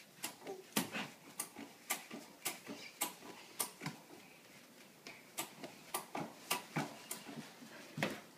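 Baby doorway jumper bouncing: quick rhythmic knocks and creaks from the jumper and the baby's bare feet landing on the wooden floor, roughly three a second, with a short break about four seconds in.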